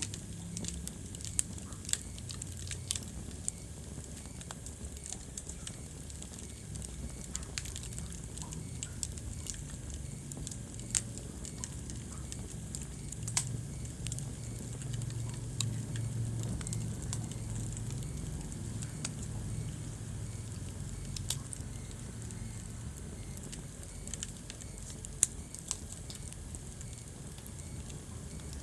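Wood fire burning in a fireplace: irregular crackles and sharp pops, a handful much louder than the rest, over a steady low rumble.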